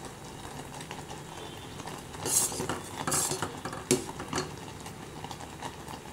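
Metal kitchen utensil scraping and clinking against a cooking pot: two short scrapes around the middle and a sharp clink just after, over a low steady background.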